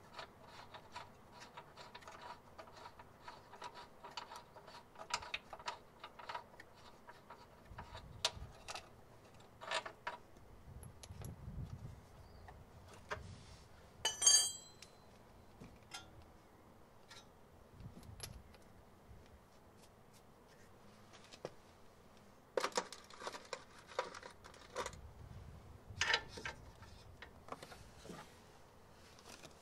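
Scattered metallic clinks, clicks and jangles of hand tools and fasteners being handled, with one sharp ringing clink about halfway through and a run of clicks later on.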